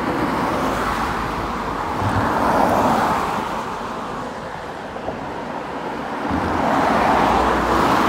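Road traffic noise: motor vehicles going by with a rushing sound that swells twice, about two and a half seconds in and again near the end.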